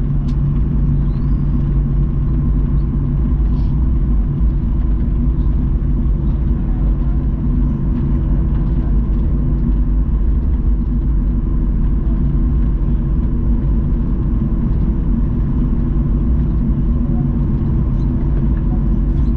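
Steady cabin rumble inside a Boeing 737-900ER, with its CFM56 jet engines running at a constant setting and a few unchanging hum tones over the noise.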